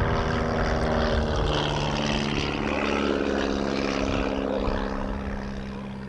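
Piston engine and propeller of a vintage single-engine light monoplane flying past; the engine's pitch drops as it goes by, then the sound fades as it banks away.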